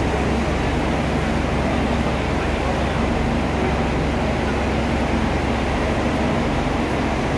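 Steady low rumble and hum of a diesel railcar idling at the platform, unchanging throughout.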